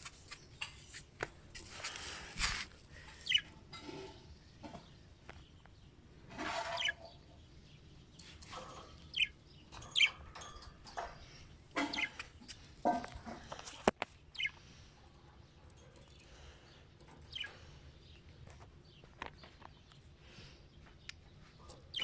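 Budgerigars chirping and chattering in short, scattered calls with quick rising and falling notes, with sharp clicks now and then.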